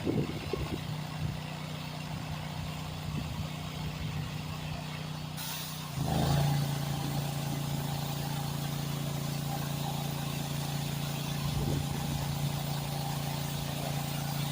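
A steady engine hum that steps up in level about six seconds in and then holds steady.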